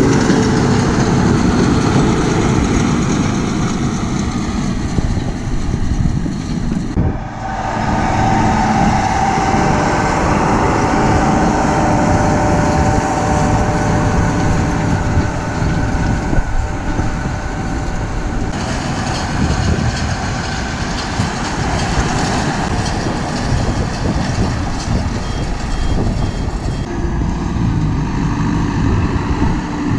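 Farm tractors running steadily while pulling haymaking machinery: a round baler, then a rotary hay rake, then a round-bale wrapper. The engine and machinery noise changes abruptly several times, and a steady whine sits over it for a few seconds after the first change.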